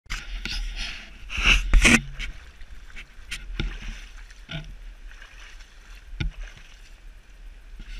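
Stream water swishing and sloshing as someone wades through a shallow creek, loudest about a second and a half in, over a steady low rumble, with a few short knocks.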